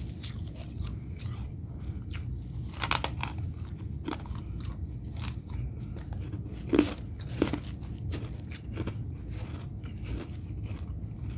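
Fresh freezer frost crunching as it is bitten and chewed, in a run of irregular crisp crunches, with two louder sharp ones a little past halfway.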